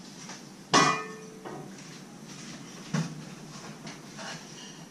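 A shovel clanks against the aluminium roof rack and its shovel holder as it is set in place, once loudly with a short metallic ring under a second in. A lighter knock follows about three seconds in.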